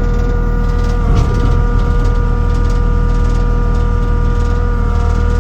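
Kubota diesel engine of a Takeuchi TL12 tracked compact loader running steadily under throttle, with a brief knock about a second in.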